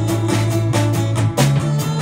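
Live band playing a rock-and-roll song: strummed acoustic guitar over a steady bass line, with a group of women singing along.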